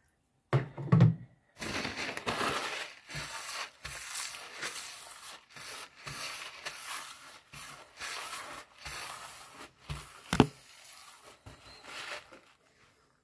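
Crinkly plastic being handled and crumpled by hand, rustling irregularly. There are a couple of knocks near the start and a sharp click about ten seconds in.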